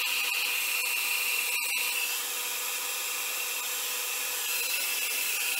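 Revlon brush blow dryer running steadily, blowing hot air over wet alcohol ink; a little quieter for a couple of seconds in the middle.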